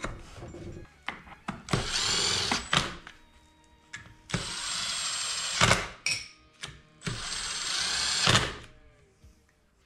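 Handheld electric power tool running in three short bursts of about a second each, its motor whining high, with clicks and knocks of metal parts between the bursts.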